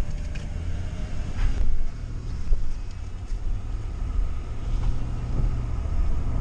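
Car engine and road noise heard from inside the cabin: a steady low rumble, with a few faint clicks and knocks.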